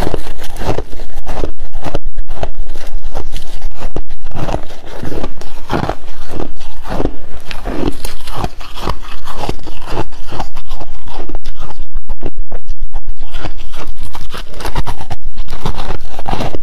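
Soft crushed ice crunching close to the microphone as it is bitten and chewed in big mouthfuls, and as handfuls are grabbed and packed by gloved hands. It is a dense run of crunches with a few brief lulls.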